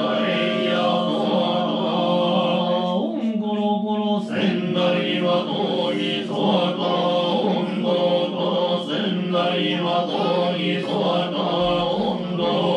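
Male voices chanting a Shingon Buddhist sutra over a steady, held low pitch, without pause.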